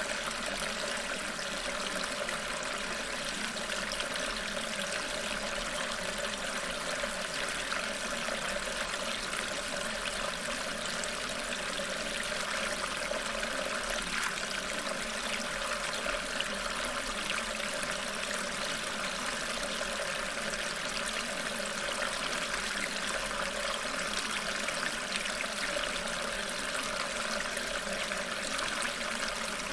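Steady running-water ambience of a flowing stream.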